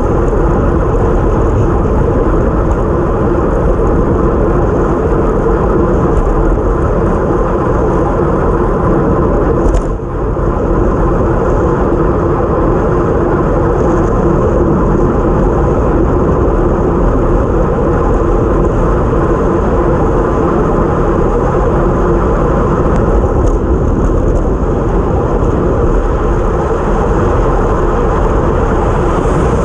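Steady rushing wind noise on the microphone of a bike-mounted GoPro during a fast time-trial ride, mixed with tyre and road noise, with one brief dip about ten seconds in.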